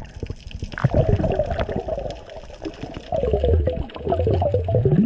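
Underwater gurgling and bubbling with low rumbling water movement, heard on a camera submerged on a reef dive. The bubbling gets louder and busier in the second half.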